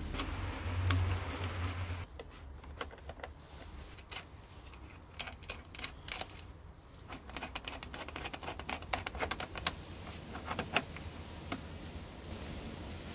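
A socket wrench driving a bolt back into the outboard engine's air intake box makes a run of quick small metal clicks and taps, thickest in the middle of the stretch. A low rumble of handling comes first, in the opening two seconds.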